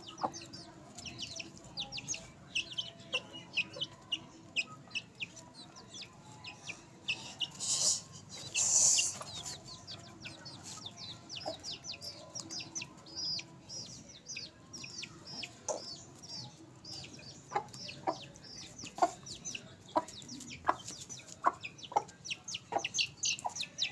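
Chicks peeping constantly in short, high, falling chirps, several a second, while chickens peck. Sharp taps of beaks striking food on a concrete floor are mixed in, most of them in the second half, and a brief rustling burst comes about eight seconds in.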